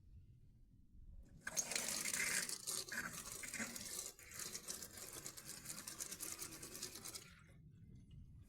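Water running from a kitchen tap into the sink basin, turned on about a second and a half in and shut off a couple of seconds before the end, with a brief drop near the middle.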